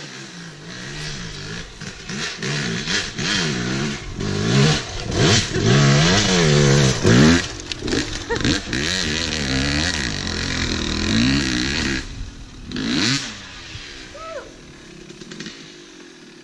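Two-stroke Yamaha YZ250 dirt bike engine revving hard in repeated bursts under load while climbing over logs, the pitch rising and falling with each blip of the throttle. It is loudest in the middle and grows quieter and more distant in the last few seconds.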